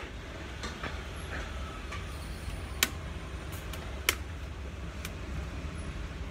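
Hammer striking a chisel at the slots of an electric motor's stator while the old copper windings are cut out: two sharp metallic strikes, about three seconds in and again just after four seconds, with a few lighter clicks. A steady low hum runs underneath.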